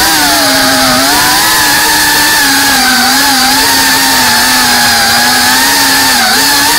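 FPV quadcopter's brushless motors and propellers whining loudly, the pitch wavering up and down continuously as the throttle changes in flight.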